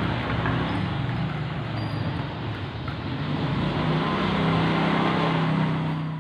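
A motor vehicle engine running steadily over outdoor background noise, growing a little louder over the last couple of seconds.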